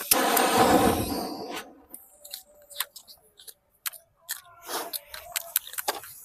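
A short burst of rustling noise, then scattered scrapes, crackles and clicks while a flower pot (anar) fountain firework is being lit.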